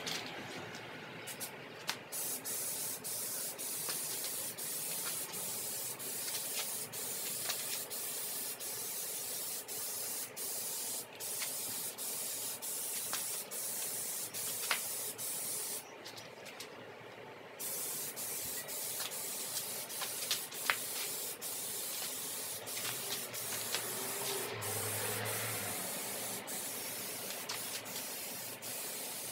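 Aerosol can of Rust-Oleum peel coat rubber coating spraying a heavy second coat, a steady hiss in long passes broken by many short pauses and a longer pause about sixteen seconds in.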